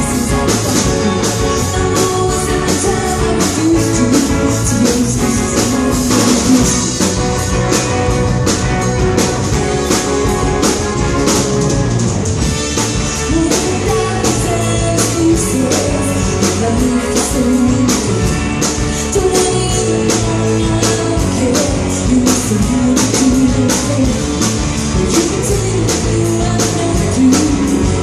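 A band playing a rock song: guitar and singing over a steady beat.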